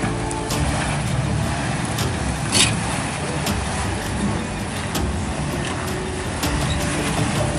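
Jeep Grand Cherokee WJ's engine running at low revs as it crawls over boulders, with scattered clicks and knocks from the tyres on rock and one brief louder rasp about two and a half seconds in.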